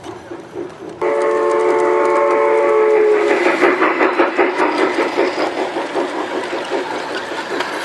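G-gauge model steam locomotive's whistle blowing one blast of about two seconds, starting about a second in, followed by a rapid clicking rumble as the train's cars pass close by on the track.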